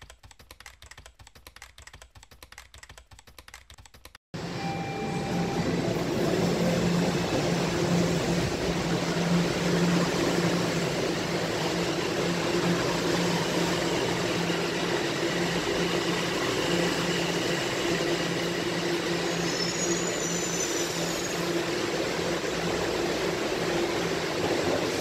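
About four seconds of quiet, rapid clicking like typing, then a sudden cut to the loud, steady running noise of a Toronto subway train, with a constant low hum under it.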